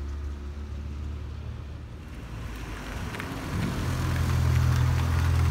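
Acura Integra's engine running as the car drives slowly up close, a low hum that grows louder from about three and a half seconds in.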